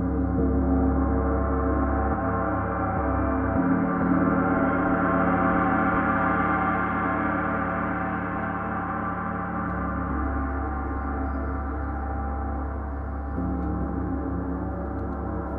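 Paiste 34-inch Symphonic gong kept sounding with soft felt mallets: a dense, shimmering wash of many overlapping tones with no distinct strikes. It swells over the first half and then eases a little, while the low hum beneath it shifts a few times.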